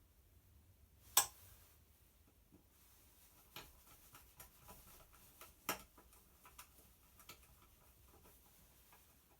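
Faint small clicks and taps of connector parts and tools being handled at a workbench, with a sharper click about a second in and another near the middle.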